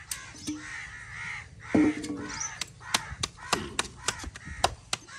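Crows cawing several times. About two and a half seconds in, a steady run of sharp knocks starts, about three a second, as of chopping on a board.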